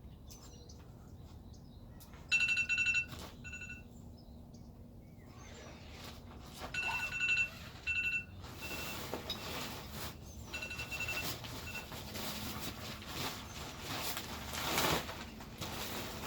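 A series of short, high electronic beeps, some single and some held for half a second, as a timer is started; from about halfway through, rough rustling and handling noise.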